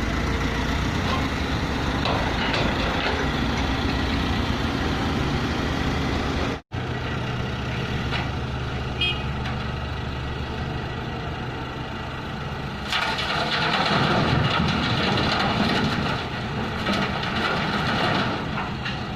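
Heavy diesel machinery running steadily at a quarry face: the excavator and dump truck engines. The sound cuts out for a moment about six and a half seconds in. From about thirteen seconds a louder, rougher noise rises over the engine.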